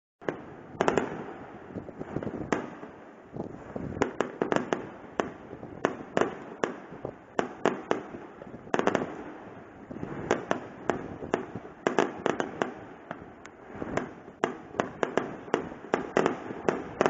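Fireworks display: a long irregular series of sharp bangs and cracks from bursting shells, often several in quick succession.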